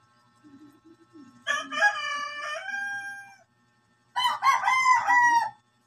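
Rooster crowing twice: a long crow ending on a falling note, then a second, shorter crow about a second later.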